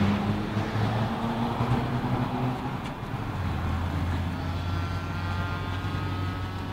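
Steady low hum of a car engine running, with the noise of road traffic.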